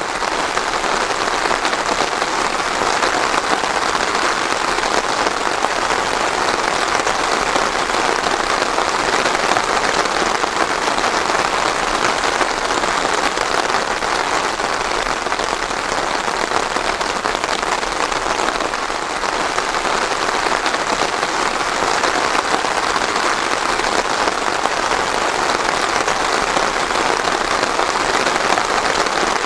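Steady rain falling on a surface, a dense even patter without thunder.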